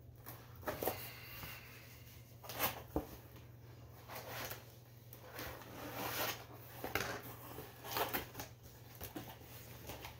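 Cardboard record mailer being opened and handled by hand: irregular rustling, scraping and light knocks of cardboard as the LP is worked out of the packing.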